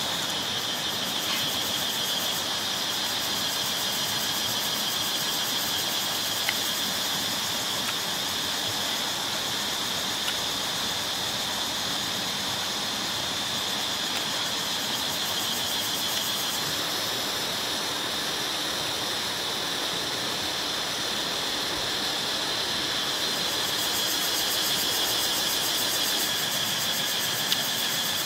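Chorus of forest insects buzzing steadily, a continuous high-pitched drone with a fast shimmering pulse above it.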